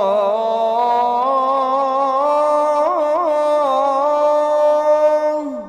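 A muezzin singing the adhan, holding the last word "Allah" of "Ashhadu anna Muhammadan rasulullah" as one long melismatic note. The note steps up in pitch twice and has quick wavering ornaments in the middle, then slides down and falls away near the end.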